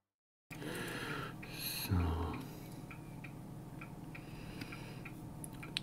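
Dead silence for the first half second, then quiet room tone with a short rustle and soft thump about two seconds in, followed by faint, regular ticking at about two to three ticks a second.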